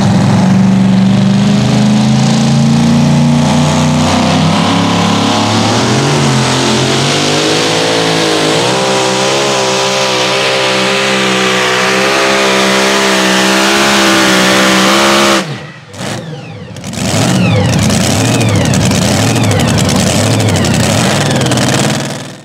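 Supercharged engine of a super modified two-wheel-drive pulling truck running hard at full throttle as it drags the sled, its pitch wavering through the pull. About fifteen seconds in it cuts off abruptly; a second or two later engine noise picks up again, then fades out at the end.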